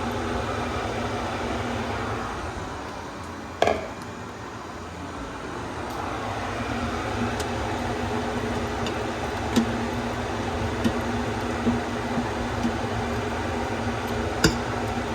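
Steady mechanical hum and hiss, with one sharp knock about three and a half seconds in and a few light clicks later.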